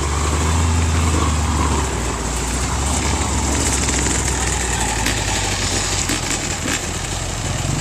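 Off-road 4x4 truck engine running steadily at low revs, with a few scattered knocks and rattles.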